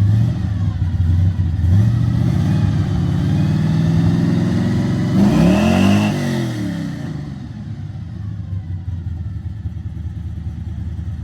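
Car engine running with its note shifting, and a vehicle passing close by about six seconds in, its engine pitch rising then falling, before the sound settles lower.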